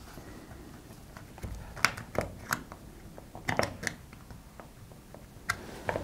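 Small screwdriver undoing a terminal screw on a plastic light switch: a few scattered clicks and scrapes of metal on the screw and the plastic fascia.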